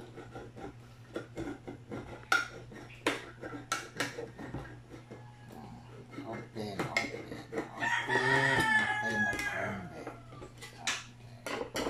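Tip of a kitchen knife punching and prying open the lid of a tin can of corned beef: a run of sharp metal clicks and scrapes. About seven seconds in, a rooster crows, the loudest sound.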